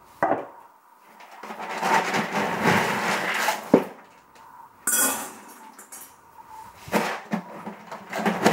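Dog food being scooped and poured into a bowl, rattling for a couple of seconds, with sharp clinks against the bowl, one near the middle and a few near the end.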